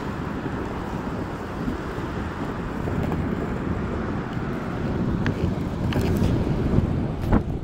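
Skateboard wheels rolling fast on asphalt, heard as a steady rumble mixed with wind buffeting the microphone. A few sharp clicks come in the last few seconds.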